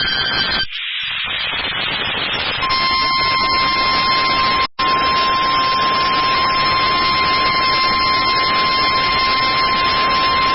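NOAA Weather Radio warning alarm tone, the steady 1050 Hz test beep used to trigger weather radio receivers, sounding over radio static. Hiss alone comes first, the tone starts about two and a half seconds in, and it drops out for an instant near the middle.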